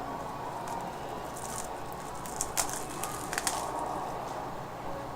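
Light crinkling and a few sharp clicks from a pack of trading cards being opened and the cards handled, most of it around the middle, over a steady faint room hum.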